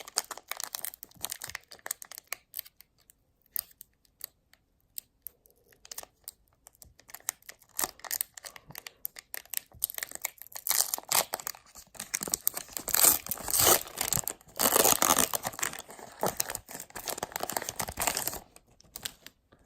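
Foil wrapper of a Pokémon booster pack being torn open and crinkled in the hands. Sporadic rustles and clicks at first, then a long stretch of dense tearing and crinkling in the second half, loudest about two-thirds of the way through.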